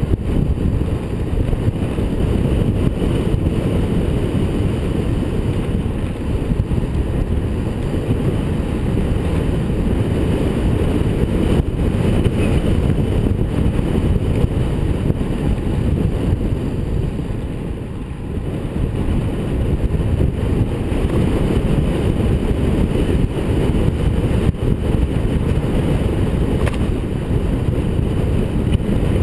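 Wind buffeting the microphone of a camera on a road bike descending at speed, a loud steady low rumble that eases slightly past the middle, with tyre noise on asphalt beneath it.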